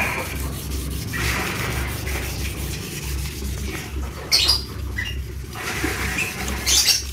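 Wet-sanding car body paint by hand with fine 2000-grit sandpaper: repeated back-and-forth rubbing strokes, with a few short high squeaks about halfway through and near the end.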